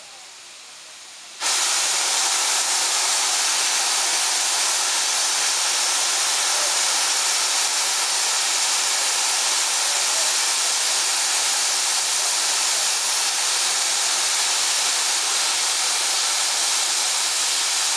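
Steam locomotive letting off steam: a loud, steady hiss that starts suddenly about a second and a half in and holds without any beat.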